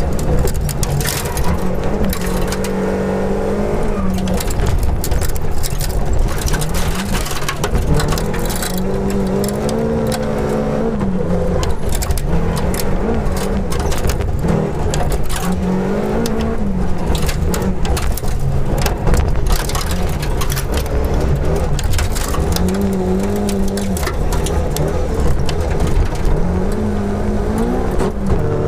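Volvo 242 Group H rally car's engine at full stage pace, heard inside the stripped cabin, with revs climbing and dropping again and again through gear changes and corners. Gravel stones clatter and ping against the underbody throughout.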